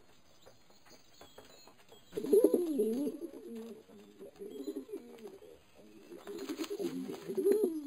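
Racing pigeons cooing, beginning about two seconds in and going on in repeated low, wavering calls.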